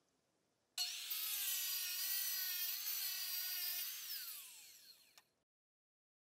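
Kobalt sliding-table wet tile saw running with a steady high whine while stone veneer pieces are fed on its tray, then switched off about four seconds in and winding down with falling pitch.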